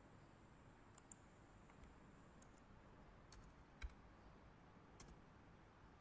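Faint, scattered clicks of a computer keyboard and mouse: about six separate clicks, the loudest a little past halfway, over near-silent room tone.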